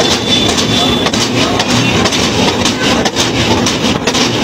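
Steady, loud roadside traffic noise: a continuous din of passing vehicles and engines.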